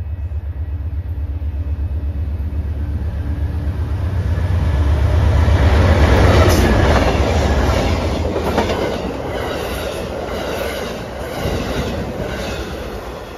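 Amtrak passenger train led by a GE Genesis diesel locomotive passing close by: a swelling rumble that peaks as the locomotive goes by about six seconds in, then the stainless-steel cars rolling past with rhythmic wheel clacks, roughly two a second. Strong wind buffets the microphone, adding a low rumble.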